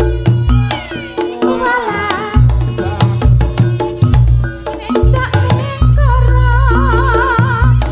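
Reog gamelan music played with heavily boosted bass: kendang drumming over long, deep bass notes, with a wavering high melody line coming in near the end.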